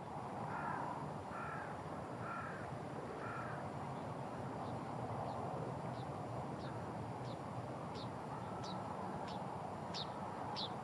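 A crow cawing four times in quick succession, followed by a small bird giving a run of short, high, downward-sliding call notes about twice a second that grow louder toward the end.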